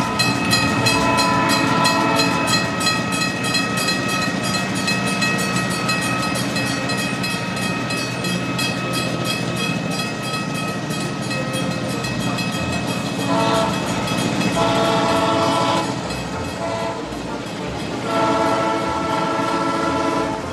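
A train running with a steady clickety-clack of wheels on rails, with horn blasts sounding in the second half.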